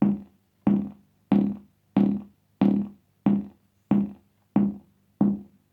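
Electronic kick drum from a homemade Twin-T oscillator circuit, beating steadily about one and a half times a second, nine hits in all. Each is a short, pitched knock that dies away quickly, with a distorted crunch on it.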